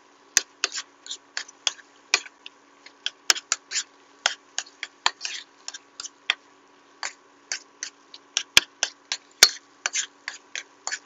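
A cooking utensil tapping and scraping against a pan while stirring a thick green-plantain purée: irregular sharp clicks, a few a second, over a faint steady hum.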